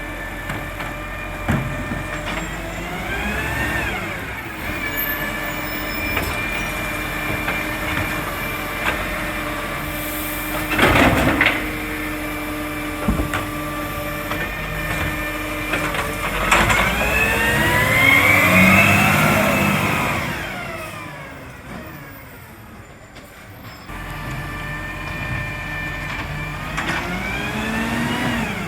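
Side-loader garbage truck's engine running and revving up and down several times, the longest and loudest rev swelling and falling away near the middle, with a short hiss of air about eleven seconds in.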